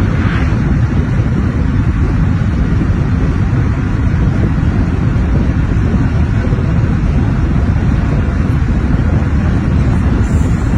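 Steady road and wind noise of a vehicle driving on a highway at speed, a constant low rumble with no change in pitch.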